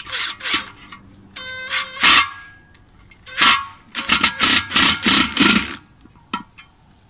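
Cordless electric screwdriver driving a screw through a nut and washer, run in a series of short bursts: a brief steady whine about a second and a half in, then a quicker string of bursts in the last few seconds.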